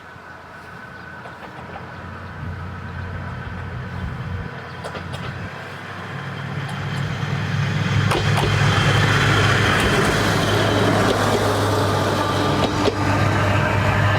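Kominato Railway diesel railcar approaching the crossing, its engine running with a low steady drone and the rush of the train growing louder for about eight seconds, then staying loud as it reaches the crossing.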